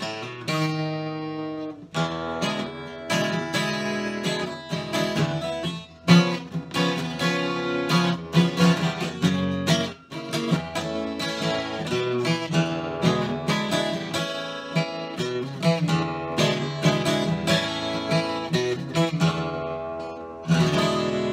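Twelve-string acoustic guitar played solo, a run of picked and strummed chords, ending on a loud chord about twenty seconds in that is left to ring.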